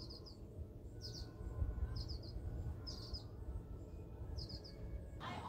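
A small bird chirping in short bursts of two or three quick notes, about once a second, over a faint steady low rumble.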